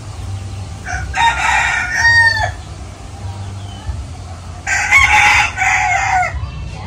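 A rooster crowing twice, each crow about a second and a half long and ending in a falling pitch, over a steady low rumble.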